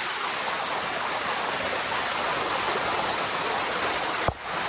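Steady rush of water flowing down a waterfall over rock, close to the microphone. A brief knock about four seconds in.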